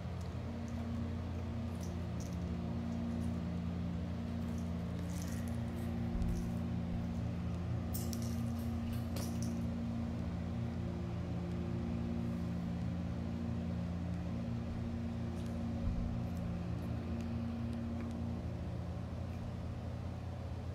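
A steady low mechanical hum with a few droning tones that come and go, and a handful of light clicks and rustles around the middle.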